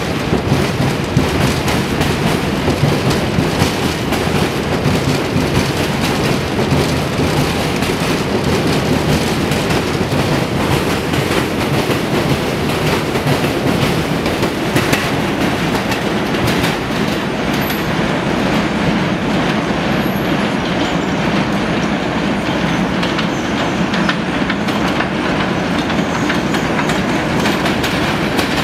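New York subway trains running on elevated steel track: a steady rumble with wheels clattering over rail joints as an R160 train pulls out of the station. An R127 garbage-train car runs past near the end.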